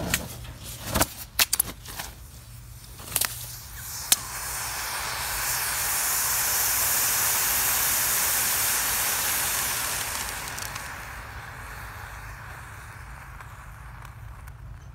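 A few knocks and clanks as the metal fire-pit lid is set down, then a sharp pop about four seconds in as a heat-triggered Auto Fireman automatic car-engine fire extinguisher fires. A loud hiss of extinguishing agent spraying out follows, swelling for several seconds and then fading away; the discharge is loud and violent.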